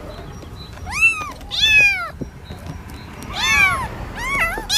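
A cat meowing several times. Each meow lasts about half a second and rises then falls in pitch.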